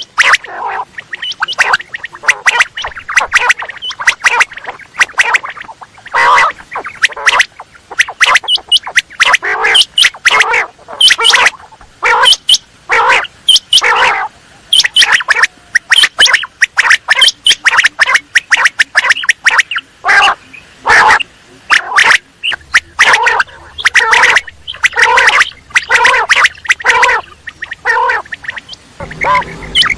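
Quail calling over and over in quick succession: a dense run of short, harsh, chattering notes, several a second.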